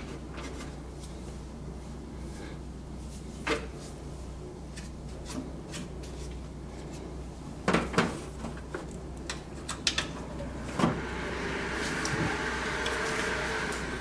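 A few clicks and knocks of a cable connector being handled and pushed into the back of a desktop computer. About eleven seconds in the computer powers on and its fans start running, a steady hum that swells a little and holds.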